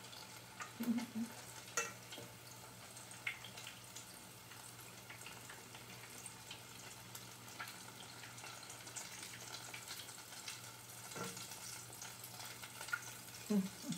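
Ripe-plantain fritters frying in a pot of oil, a faint steady sizzle with small crackles, and a few clicks of a metal spatula against the pot.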